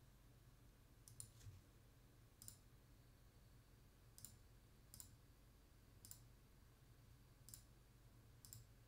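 Faint computer mouse clicks, about eight at uneven intervals, over a low steady hum.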